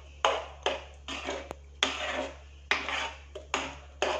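Spatula scraping and slapping through thick mango halwa in a steel pan, in quick repeated strokes about two or three a second. The stirring is constant to keep the custard-thickened mixture from going lumpy.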